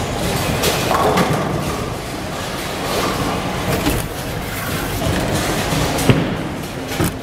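A Radical Grease Monkey bowling ball crashes into the pins about a second in, pins clattering and scattering. This is followed by the rumble and thumps of the automatic pinsetter clearing the deck amid busy bowling-alley noise.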